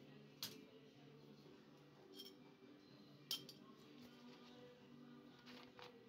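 A few sharp clinks and knocks, some with a short metallic ring, as small objects are handled and set down on a table. The loudest comes about three seconds in, over faint background music.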